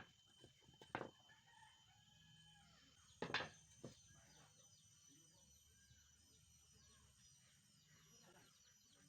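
Faint, distant rooster crowing with small birds chirping, broken by two sharp knocks about a second and three seconds in.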